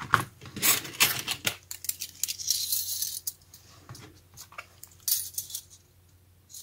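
A stack of thin metal craft cutting dies clinking and rattling against each other as they are picked up and handled: a run of light metallic clicks over the first three seconds, and a short cluster again about five seconds in.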